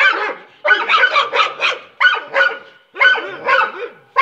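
A Doberman and a Staffordshire terrier wrestling, barking in quick runs of several barks with short pauses between the runs.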